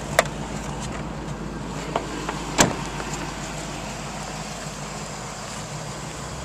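A 2006 Hummer H2's door shutting once, a single solid thud about two and a half seconds in, after a few light clicks. A steady low hum runs underneath.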